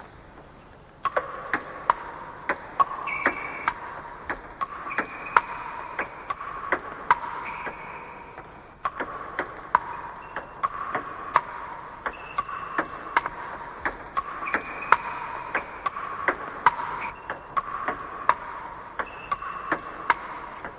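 Table tennis rally: the ball clicking off rubber bats and bouncing on the table, about two hits a second, over a steady hiss.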